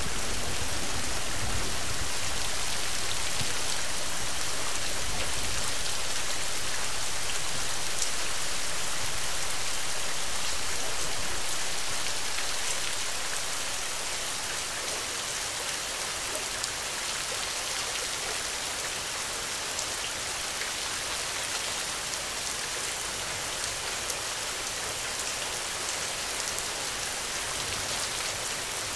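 Steady rain falling in a forest, with the tail of a low thunder rumble dying away in the first couple of seconds. The rain grows quieter about twelve seconds in.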